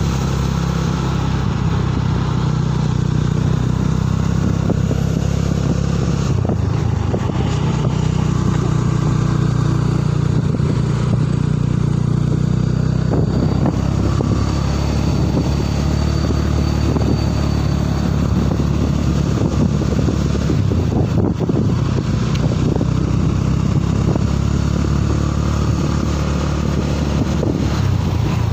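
Motorcycle engine running steadily at riding speed, with road noise, heard from on the bike.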